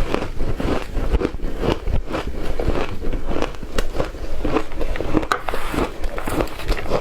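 A person chewing shaved ice: continuous, irregular crunching and crackling.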